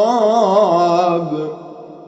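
Male Quran reciter chanting in melodic tajweed, drawing out the last word 'al-'iqab' with wavering ornaments in the voice. The voice stops about a second and a half in, leaving an echo dying away.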